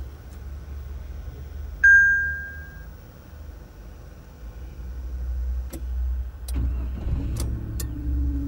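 A single electronic dashboard chime sounds about two seconds in as the ignition comes on. About six and a half seconds in, the 2014 Brilliance H530's engine cranks briefly, catches and settles into a fast idle near 1,000 rpm.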